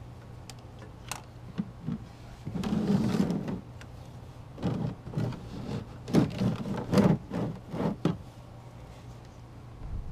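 Metal oil filter wrench clinking, knocking and scraping against a motorcycle's oil filter and engine as it is worked into place. A few sharp clicks come first, then a brief rush of noise, then a busy run of knocks and rattles. The wrench is too small for the filter.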